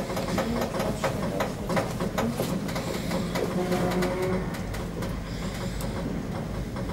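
Funicular car running slowly on its rails, with a steady clicking and rattling that settles after about four seconds. A brief whine comes near the point where it settles.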